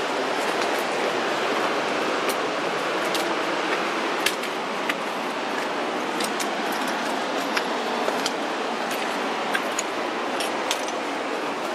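Footsteps on a trail of loose shale: sharp, irregular clinks of flat stones knocking together underfoot, about one or two a second, over a steady rushing noise.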